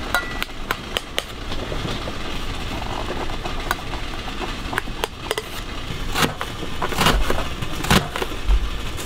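Irregular clicks and knocks, a few louder ones in the second half, over a low steady rumble.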